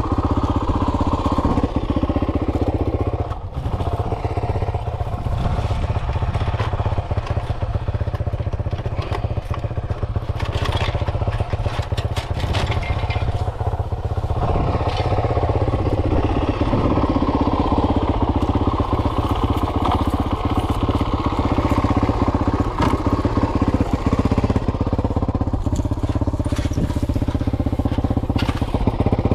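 Dirt bike engine running while riding, its note shifting with the throttle, with a brief drop about three and a half seconds in. Many short knocks and clicks sound over it.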